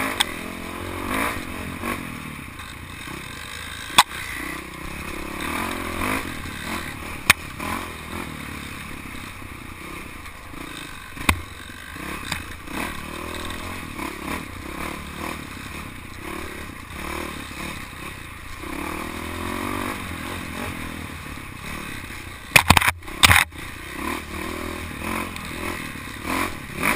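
Dirt bike engine running while riding a rough dirt trail, its pitch rising and falling with the throttle, under the rattle and clatter of the bike over the bumps. Several sharp knocks come through, with a cluster of loud hard knocks a little before the end.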